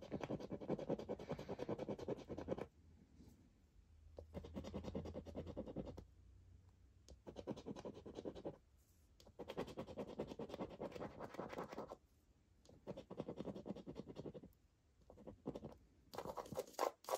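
A coin scratching the coating off a scratchcard, in about six short bouts of rapid scraping with brief pauses between them.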